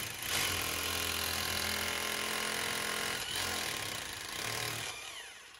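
Hammer drill boring into a wall, running steadily for about five seconds and then winding down near the end.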